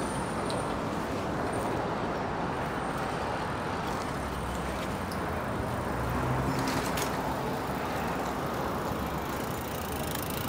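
City street traffic: passing cars and other vehicles make a steady rumble of engines and tyres, with one vehicle's engine hum growing louder about halfway through.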